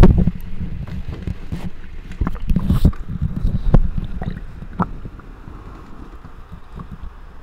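Human stomach growling and gurgling, picked up by a microphone close against the belly. A loud growl comes right at the start, then a low churning rumble with small pops and gurgles that slowly fades.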